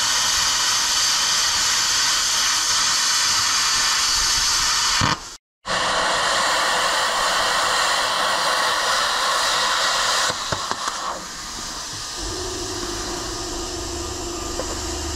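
Handheld plasma cutter cutting steel angle iron: a loud, steady hiss of the air-plasma arc. It breaks off for a moment about five seconds in, resumes, and stops about ten seconds in. After that a quieter steady hum with a low tone remains.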